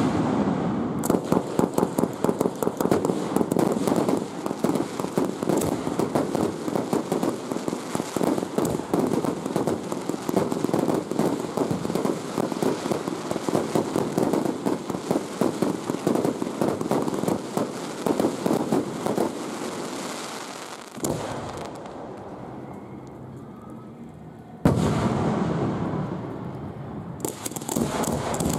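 Fireworks display heard from close range: a dense run of rapid bangs and crackling pops that thins out after about twenty seconds. A single loud bang comes a few seconds later, followed by another flurry of rapid pops near the end.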